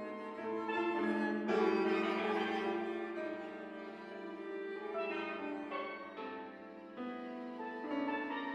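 Live contemporary chamber music from a small ensemble of strings and piano: sustained, overlapping held notes that swell about a second and a half in, ease off briefly past the middle, and build again near the end.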